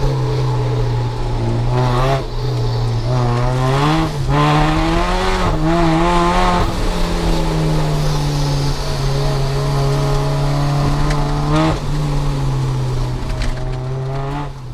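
Rotrex-supercharged Mazda MX-5's 1.8-litre BP-ZE four-cylinder engine, through a decat exhaust, running hard at steady revs. Between about two and seven seconds the revs rise and fall, with tyre squeal warbling over the engine during the skids.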